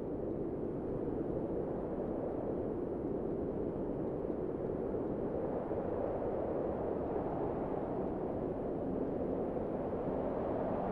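A steady low rumble of noise, growing slightly louder. Near the end a low hum of two steady tones comes in.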